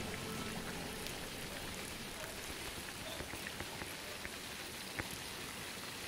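Water in a shallow stream: a steady hiss with scattered small drips and ticks, and one sharper click about five seconds in.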